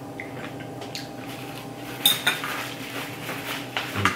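Metal fork clinking against a small glass bowl, with the sharpest, ringing clink about halfway through. A low knock and click near the end as the fork is set down in the bowl.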